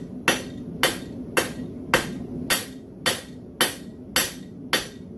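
Blacksmith's hand hammer striking red-hot railroad-spike steel on an anvil face, texturing the forged cross. Nine even blows come about two a second, each with a short ring, over a steady low hum.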